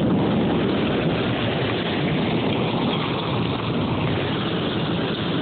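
Heavy rain and hail pouring down in a steady, dense rush.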